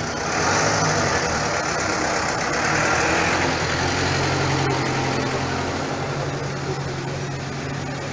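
Minibus engine idling, a steady low hum, amid street traffic noise that is louder during the first few seconds.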